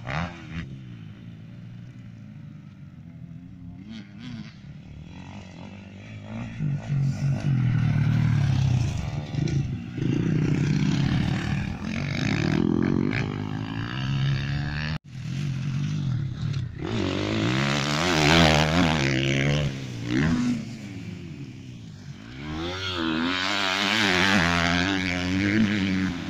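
Motocross dirt bike engine revving as it rides the track, its pitch rising and falling again and again as the rider accelerates and backs off. The sound cuts off suddenly about halfway through, then the revving picks up again and grows louder toward the end.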